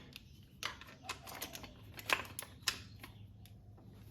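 Scattered sharp clicks and light plastic clatter as an engine's fuel-injector wiring harness is popped off its clips and pulled aside, about half a dozen clicks over a faint low hum.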